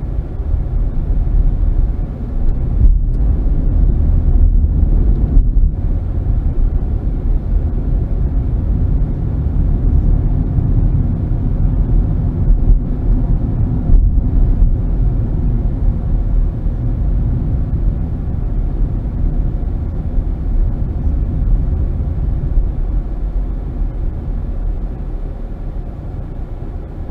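Car driving, heard from inside the cabin: a steady low rumble of engine and tyre noise, which fades somewhat near the end as the car slows.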